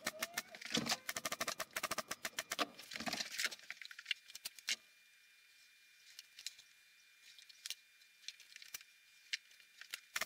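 Pneumatic brad nailer firing brads into the frame's wooden strips: a quick run of sharp clicks and pops, then only a few scattered clicks after about five seconds.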